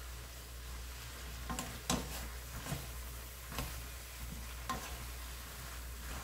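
A spatula stirring and tossing bean sprouts and squid in a thick sauce in a nonstick frying pan, over a faint steady sizzle, with a few short scrapes and taps against the pan.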